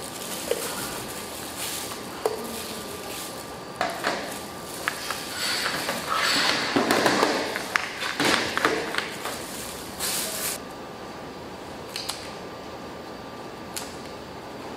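Small glass jars with metal screw-on lids handled on a stainless steel worktop: scattered clinks and knocks of glass and metal, with a busier stretch of rattling and scraping in the middle.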